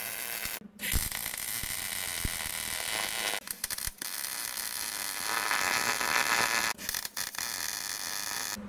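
MIG welder laying short welds: a crackling, sizzling arc hiss in four runs of one to three seconds, with brief stops between them.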